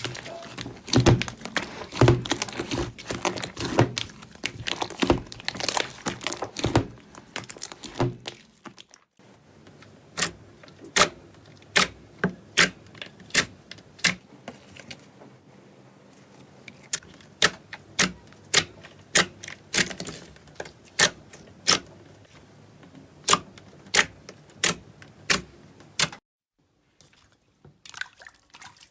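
Slime being pressed and worked by hand, making crisp clicks and pops. At first the clicks come thick and fast; after a short break about nine seconds in, single sharp pops come about twice a second.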